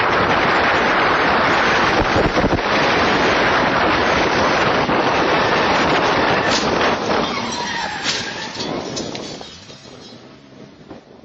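Wind buffeting the microphone over the road and engine noise of a moving car, loud and steady, then fading away over the last few seconds.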